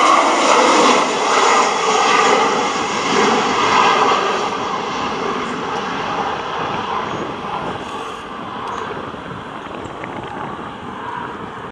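Boeing 737-800's CFM56-7B turbofan engines at takeoff thrust, a broad jet noise that fades steadily as the aircraft climbs away.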